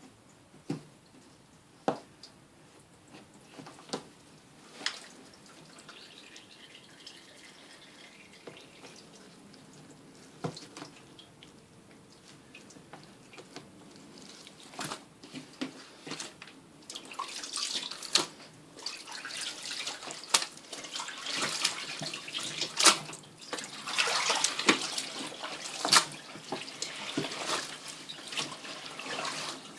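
Water running and splashing into a twin tub washing machine. It grows louder from about halfway in, and a few sharp clicks and knocks come before it.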